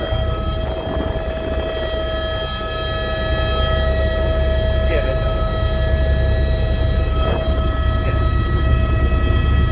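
Helicopter turbine whine, a set of steady high tones, over the fast low beat of the rotor blades. It grows slightly louder toward the end.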